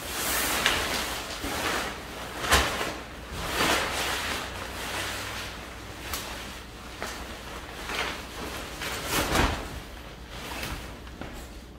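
Nylon fabric of a pop-up privacy tent rustling and swishing as it is unfolded and springs open. A few sharp knocks come from the frame as it pops out, the loudest about two and a half seconds in.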